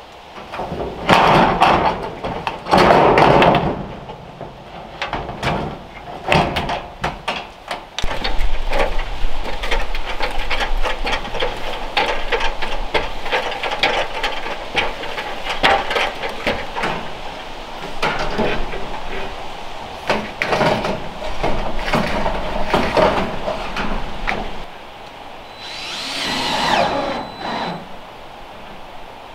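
Sheet-metal roofing being handled and worked on: scraping and rattling of metal panels with many sharp knocks and taps, coming in bursts.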